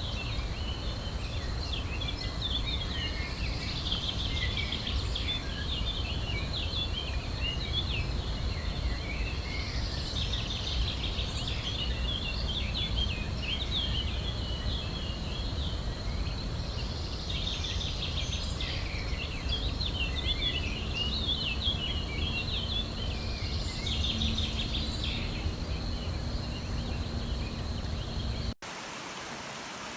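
Birds chattering and singing in repeated bursts, over a steady high thin tone and a low rumble. Shortly before the end it cuts off suddenly to a steady even rushing hiss.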